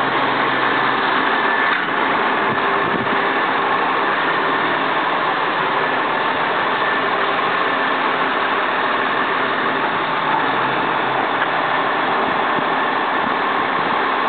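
Freightliner plow truck's diesel engine idling steadily.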